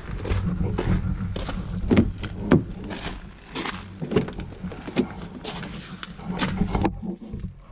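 Footsteps crunching on a gravel driveway over a low steady rumble, then a car's exterior door handle pulled and the driver's door opened about five seconds in; the rumble drops away near the end.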